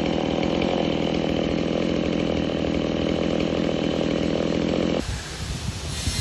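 Gas-powered chainsaw running at a steady high speed while cutting into a dead tree, cutting off abruptly about five seconds in, followed by a low rumble.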